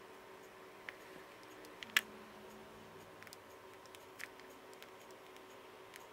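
Scattered light clicks and taps of plastic Play-Doh toy pieces being handled while shaping teeth, the sharpest about two seconds in, over a faint steady hum.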